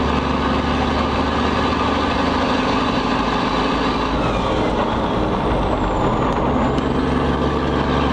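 Cummins N14 diesel engine of an International Eagle semi truck running steadily on the road, its drone mixed with road and tyre noise; the engine note changes around the middle.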